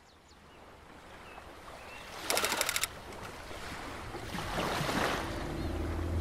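Harbour ambience fading in: a steady wash of water and air noise with a few faint bird chirps, a quick rattle of clicks about two seconds in, a whooshing swell around four and a half seconds, and a low engine-like hum starting near the end.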